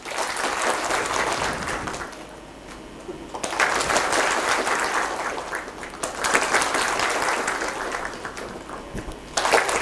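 An audience clapping, its loudness swelling and falling as the crowd follows a raised or lowered hand: a dip about two and a half seconds in, louder again from about three and a half seconds, and a fresh burst near the end.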